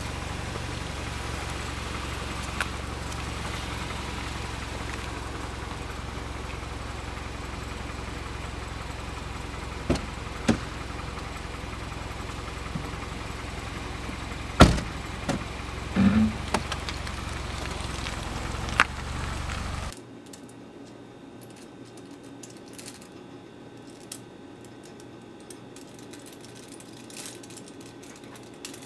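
Car running, heard from inside the cabin: a steady low rumble with a few sharp knocks and clicks. About two thirds of the way through it cuts off suddenly to quiet room tone with faint ticks and a single click near the end.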